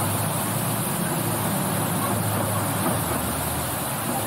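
Safari ride truck driving, its engine giving a low steady hum under road and wind noise. The engine hum drops away about three seconds in.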